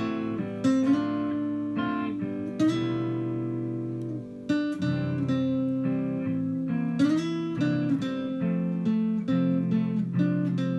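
Background music on acoustic guitar: picked and strummed notes, some of them sliding in pitch.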